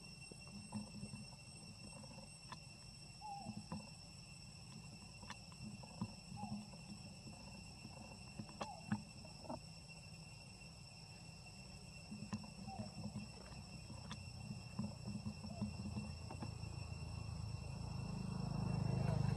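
A steady, high, whining insect drone in the trees, with scattered sharp clicks and snaps and a few short, faint squeaks. A low rumble swells near the end.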